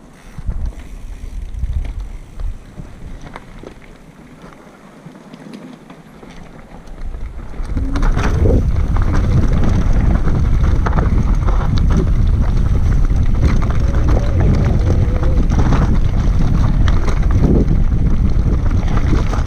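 Mountain bike rolling down a loose, rocky trail: tyres crunching over stones and the bike rattling, with wind buffeting the camera microphone. It is quieter at first and becomes loud and continuous from about eight seconds in, with many small knocks and clatters through the rushing wind.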